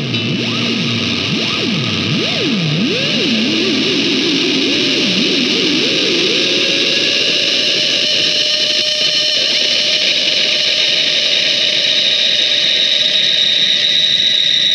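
Experimental electric guitar played through effects: wide swooping pitch glides that settle into a distorted, noisy drone with a high held tone.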